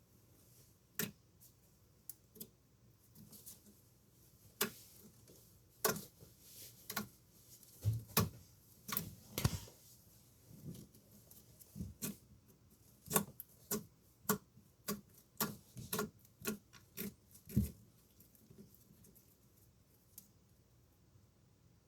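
Slime being squeezed and worked by hand, giving irregular sticky clicks and pops, busiest in the middle and thinning out near the end.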